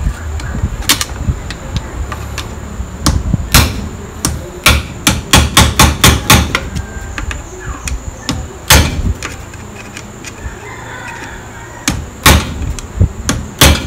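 Hammer tapping a metal punch against the bent tab of a lock washer on a gear nut, to flatten it so the nut can be undone. Sharp metal knocks in irregular groups, with a quick run of them in the middle.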